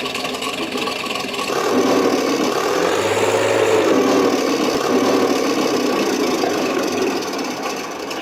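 An RC tank's sound module playing a simulated tank engine running through its small speaker, swelling about a second and a half in.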